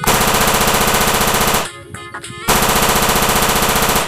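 Toy M16-style rifle making its rapid-fire machine-gun sound in two bursts of about one and a half seconds each, a second apart.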